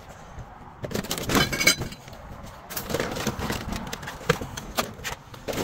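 Goods being handled and set down: scattered knocks, rustling of packaging and light clinks of ceramic dishware, with a busier run of clinking about a second and a half in.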